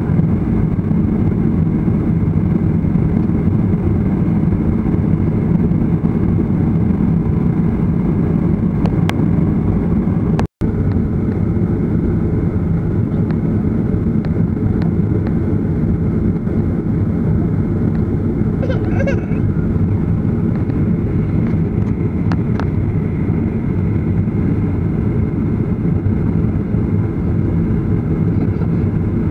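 Steady low rumble of a jet airliner's engines and airframe heard inside the cabin while taxiing. The sound cuts out completely for a split second about ten seconds in.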